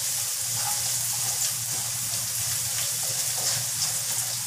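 Fried snails and spices sizzling in a hot oiled wok as sweet soy sauce cooks in, a steady hiss with a few light scrapes of the spatula stirring against the pan.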